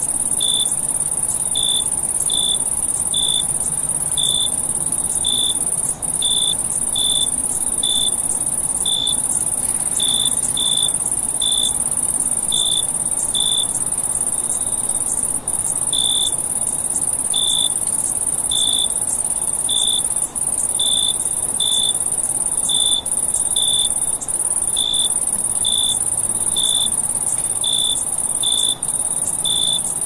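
Crickets chirping: a steady, high-pitched trill runs throughout, and a lower, separate chirp repeats about once or twice a second.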